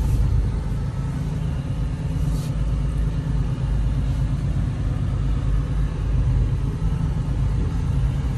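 Semi truck's diesel engine running at low speed, heard from inside the cab as a steady low rumble.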